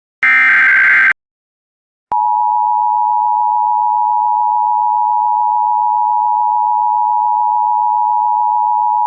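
Emergency Alert System signalling. First comes the last of the SAME header's digital data bursts, about one second of buzzing modem-like noise. After a second of silence, the steady two-tone EAS attention signal begins about two seconds in, 853 Hz and 960 Hz sounding together, and holds unbroken.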